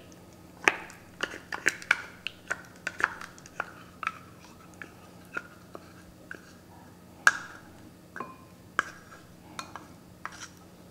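Wooden spoon scraping mayonnaise out of a measuring cup into a ceramic bowl: a string of irregular light taps and clicks as the spoon knocks against the cup and bowl, with a sharper knock about seven seconds in.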